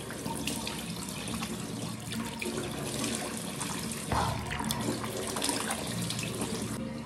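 Water running from a tap into a sink while cupped hands splash water onto a face, with splashes and drips throughout and a louder splash about four seconds in.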